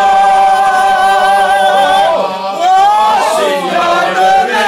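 A man and a woman singing together: one long held note, then a wavering, sliding vocal phrase about halfway through.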